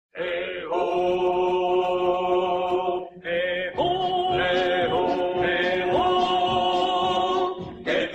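Music with voices singing or chanting long, steady held notes, with a short break about three seconds in.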